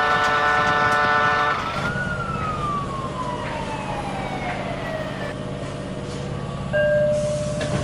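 A horn sounding a steady chord for about a second and a half. Then a single siren-like tone winds slowly down in pitch over a steady low engine hum, and a loud steady horn tone comes in near the end.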